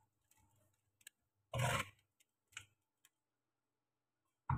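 Kitchen cleaver knocking and scraping against a plastic cutting board as food is chopped and gathered: a few light clicks, a longer, louder scrape about a second and a half in, and a sharp knock near the end.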